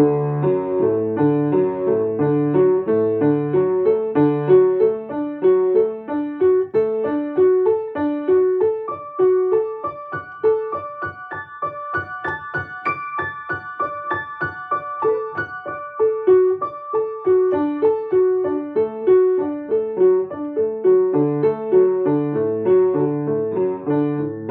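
Piano playing short arpeggios at a slow, even pace as a technique exercise. The figures climb up the keyboard to a peak about halfway through, then come back down.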